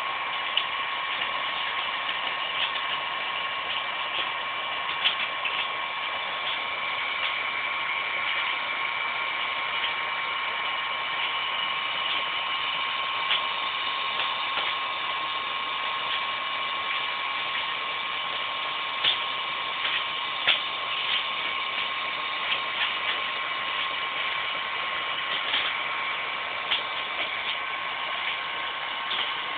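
Hand-held heat gun running steadily, its fan blowing hot air into the male mould to melt it out of a cured carbon-fibre shell: an even rushing noise with a steady whine. A few small clicks sound over it here and there.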